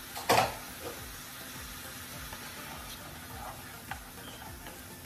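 Chopped onion, bell pepper and minced garlic sizzling in a skillet, a sauté sizzle. A sharp knock sounds about a third of a second in, and a silicone spatula stirs and scrapes the vegetables in the pan near the end.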